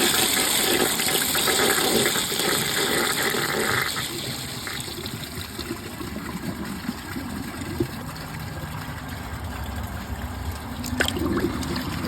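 A Vortens Vienna front-flush toilet fed from a mid-height tank flushing: water rushes loudly into the bowl for about four seconds, then settles to a quieter low gurgling and trickling as the flush tails off. A sharp click comes about eleven seconds in.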